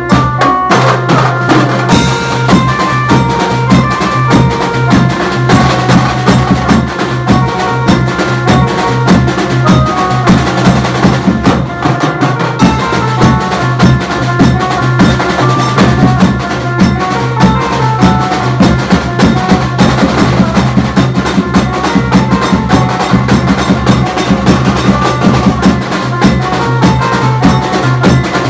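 Loud music: fast, steady drumming under a melody of held notes moving step by step.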